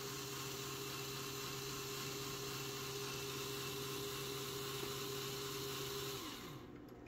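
Lego Power Functions XL motor whining steadily as it drives the gear train and chain that winds the clock's weight back up. About six seconds in its pitch falls away and it stops.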